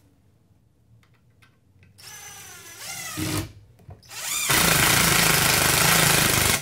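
Cordless drill driving a long screw through a wooden rail into a post. A first short whirring run starts about two seconds in and rises in pitch. After a brief pause the drill speeds up again and runs loud and steady for about two seconds, sinking the screw, then stops suddenly at the end.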